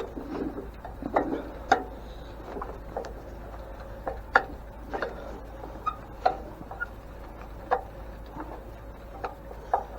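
Hand tools working at a stuck screw on an antique grain mill: about a dozen sharp, irregular clicks and taps, roughly one or two a second.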